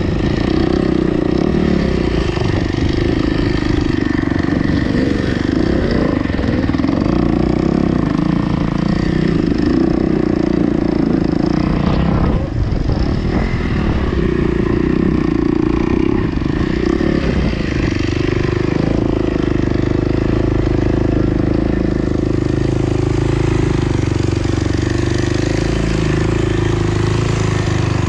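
Kawasaki KX250X four-stroke single-cylinder dirt bike engine running under way, its note rising and falling with the throttle, with a brief drop about twelve seconds in.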